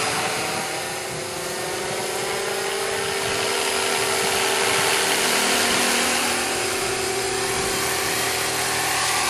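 SJM430 electric RC helicopter in flight: the steady, high whine of its motor and drive mixed with the rush of its spinning rotor. It grows somewhat louder through the middle as the helicopter passes close.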